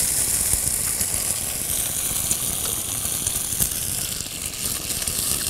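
An egg frying in hot oil in a frying pan: steady sizzling with scattered crackling pops, over a low rumble.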